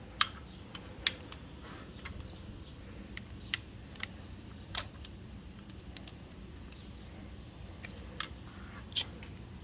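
Hand socket ratchet on a 13 mm socket clicking as it is worked on a hard-to-reach screw: a dozen or so short, sharp clicks at irregular spacing, one a little louder about five seconds in.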